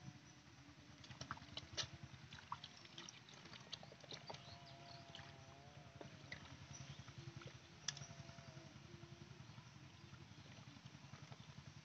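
Faint splashing and squelching of hands digging through wet mud and shallow muddy water, with scattered small clicks and splashes.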